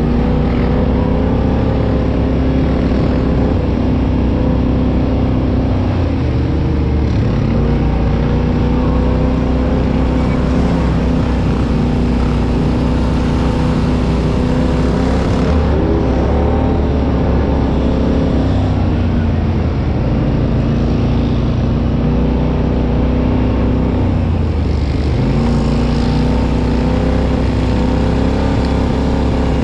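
Off-road ATV engine running steadily under throttle, its revs dropping briefly and climbing back three times.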